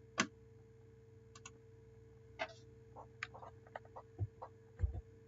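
Faint, scattered clicks of a computer mouse and keyboard: a single click just after the start, a few more spread through the middle, and an irregular run of quicker clicks from about three seconds in, over a faint steady hum.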